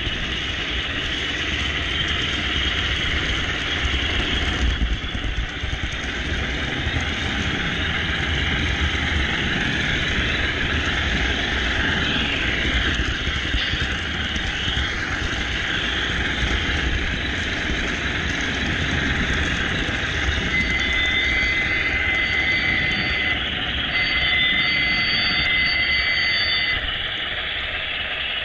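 HO scale model train running on the layout, heard from right behind the Broadway Limited Baldwin Centipede locomotive: a steady dense rattle and rumble of the wheels on the rails, mixed with the locomotive's onboard sound. Two long, steady high tones sound in the last third.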